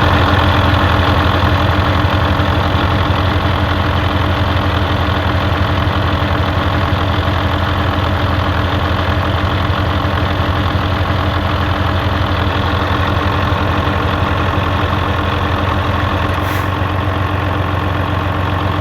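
Volvo semi truck's diesel engine idling steadily with a fine rapid pulsing, the running noise that the owner puts down to a failing air compressor.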